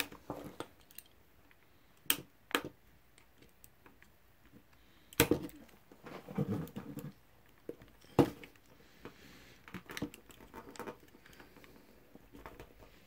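Scattered clicks and knocks of plastic on plastic as a DJI Mavic Pro's replacement motor arm is handled and pressed into its pressure fit in the drone body. The sharpest knocks come about two, five and eight seconds in, with a short rubbing stretch between them.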